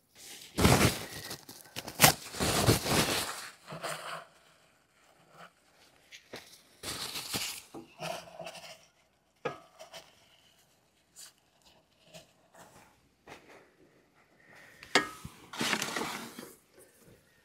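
Hard objects clattering and clinking as they are handled and set down, with sharp knocks. The loudest bursts come about a second in and again near the end, with scattered knocks between.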